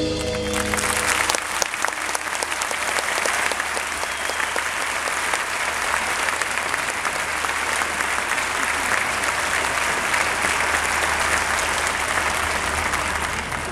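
Theatre audience applauding. The applause builds in about half a second in, as the band's last keyboard chord dies away.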